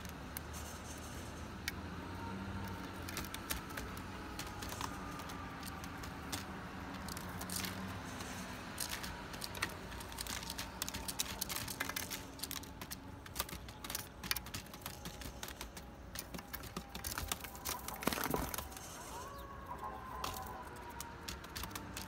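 Mourning doves pecking rice from a plate and shuffling on aluminium foil: quick irregular tapping and crinkling, thickest in the middle of the stretch, over a steady low hum.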